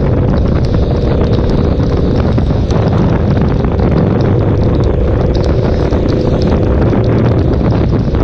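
Heavy wind noise on the microphone over the KTM 1290 Super Duke R's V-twin engine running at a steady cruise, with scattered small ticks of rain striking the camera.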